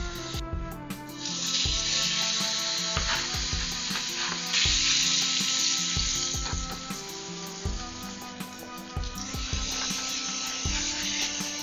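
Slices of meat sizzling in a hot frying pan, the sizzle swelling louder three times.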